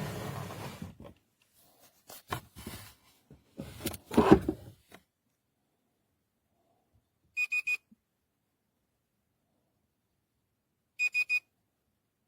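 Biometric pistol safe's electronic lock beeping: two sets of three quick, high beeps about three and a half seconds apart. Before them come a rustle and a few clicks and knocks of handling the safe, the loudest about four seconds in.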